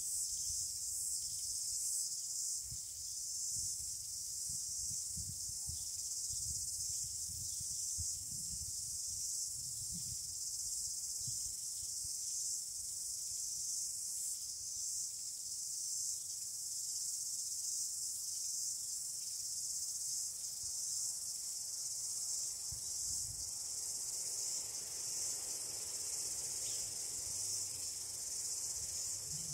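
Continuous high-pitched chorus of insects, steady and even throughout, with faint irregular low rumbles underneath.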